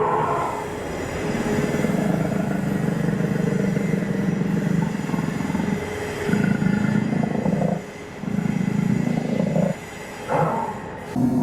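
Recorded dinosaur roar played through an animatronic dinosaur's speaker: low, rumbling growls, one of about four seconds, then two shorter ones.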